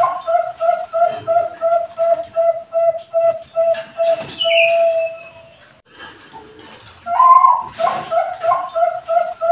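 Caged zebra dove (Bangkok-type perkutut) cooing: a quick run of short soft notes, about three a second, ending in a longer drawn-out note. After a pause of about a second a new phrase begins on a higher opening note and runs on in the same rhythm. A brief high, falling chirp sounds near the middle.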